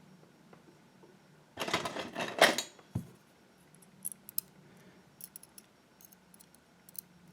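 Small metal parts of a gutted pin-tumbler lock cylinder being handled: a short rattling clatter, a single knock, then a scatter of tiny sharp clicks as the key pins are taken out and laid down.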